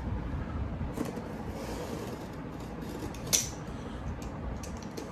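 Snap-off utility knife blade slicing through packing tape and cardboard on a box, a quiet rasping scrape with one sharper scratch a little over three seconds in.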